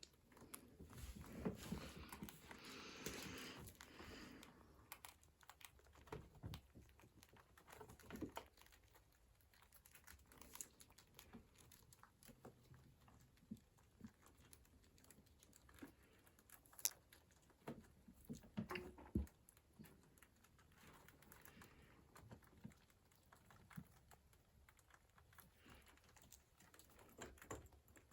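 Faint crinkling and rustling for a few seconds near the start, then scattered light clicks and taps, with a couple of sharper ticks partway through.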